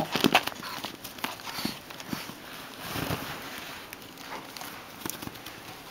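Crinkly plastic ferret tube rustling and crackling as a dog and a ferret play at it, with many sharp taps and scratches, loudest at the start.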